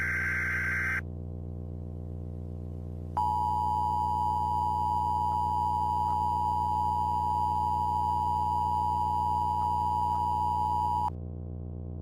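The end of an Emergency Alert System SAME header data burst, a short rasping digital screech, in the first second. About three seconds in, the EAS two-tone attention signal (853 and 960 Hz) starts, sounds steadily for about eight seconds and cuts off sharply, all over a steady low hum.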